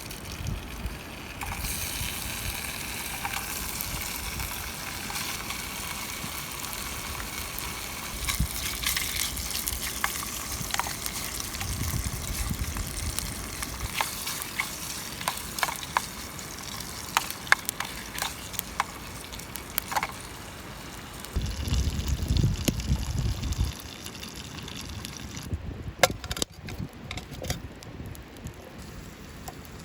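Food simmering and sizzling in a mess tin over a wood campfire, a steady hiss with scattered sharp pops and crackles. A few seconds of low rumble come partway through, then the hiss drops away and only occasional pops remain.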